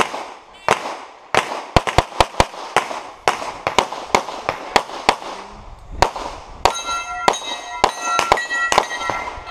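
Rapid pistol fire: about twenty shots, many in quick pairs, as a shooter works through a USPSA stage. From about two-thirds of the way in, some shots are followed by a lingering metallic ring from struck steel targets.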